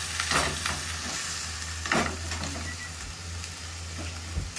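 Potato strips sizzling as they fry in oil in a pan (Nepali Mustang aloo), a steady hiss over a constant low hum, with a couple of sharp clinks near the start and about two seconds in.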